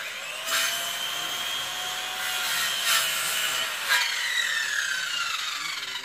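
Handheld electric power saw cutting into a tree branch. Its motor starts suddenly and whines steadily over the rasp of the blade in the wood, with a few knocks. From about two-thirds of the way through, the whine falls in pitch as the motor slows.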